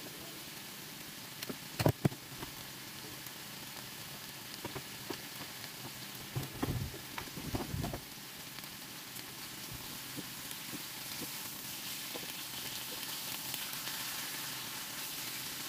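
Seasoned chicken thighs sizzling in a hot frying pan, the hiss growing a little louder near the end. A few sharp knocks come about two seconds in, and a cluster of heavier knocks around seven seconds.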